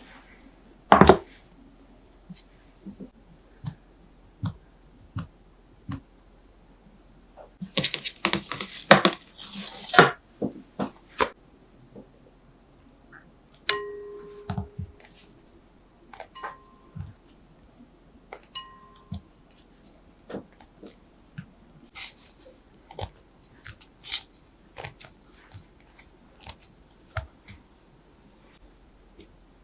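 Kitchen handling sounds: a sharp knock about a second in as a metal baking tray is set down on a wooden board, a burst of clatter around the middle, then a long run of light taps and clinks as a frozen puff pastry sheet is torn by hand and the pieces drop into a glass bowl, the bowl ringing briefly a few times.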